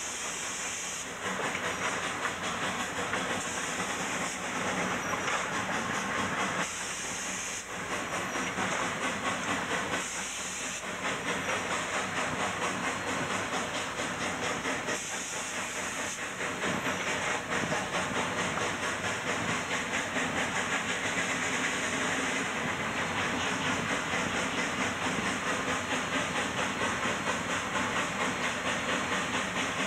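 Cab noise of a K-36 narrow-gauge steam locomotive working a heavy train upgrade: a steady hiss of steam over fast, even exhaust beats, with short bursts of sharper hiss every few seconds. The beats grow a little louder about halfway through.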